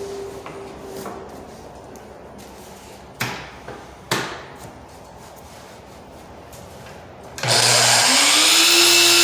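Two sharp knocks, then an electric miter saw switched on and running for about three seconds near the end. Its whine rises as the blade comes up to speed, and it stops abruptly. The saw is making a straight trim cut on the crown molding's messy factory edge.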